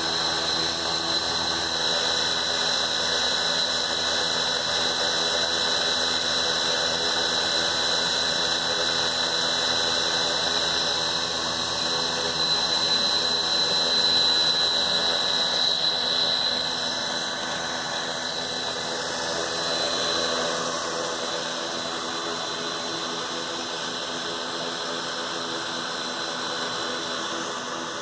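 Blade Chroma quadcopter's electric motors and propellers spinning on the ground with a steady high-pitched whine, its nearly drained battery leaving too little power to lift off. The whine swells slightly about halfway through, then eases off.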